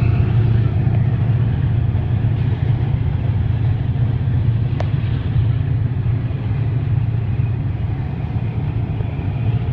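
Diesel locomotive of a departing freight train, a steady low rumble that eases slightly toward the end. A brief sharp click about five seconds in.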